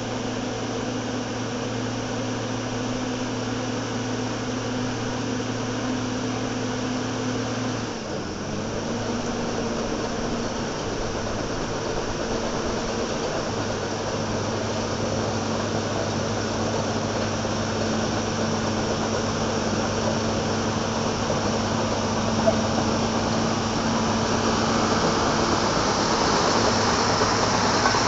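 Small crawler dozer's diesel engine running steadily under load, growing louder as it comes closer. Its note steps down slightly about eight seconds in, and more hiss joins near the end.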